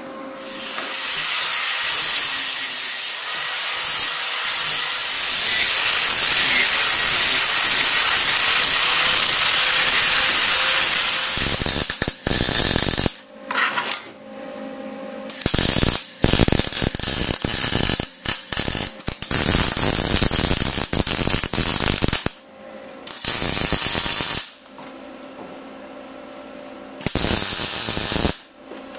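Wire-feed (MIG) welder arc crackling and buzzing on steel: one long continuous bead of about ten seconds, then a series of shorter welds and tacks with pauses between them.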